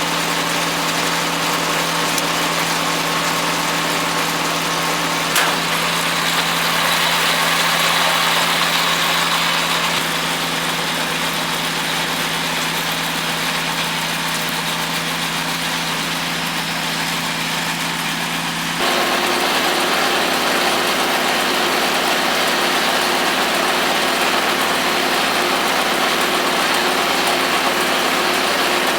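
Compact tractor's diesel engine running steadily at work in a hay field. About 19 seconds in the sound changes abruptly and gets slightly louder.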